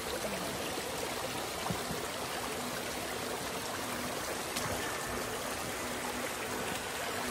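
Shallow woodland stream running and rippling over stones in a steady, even rush of water.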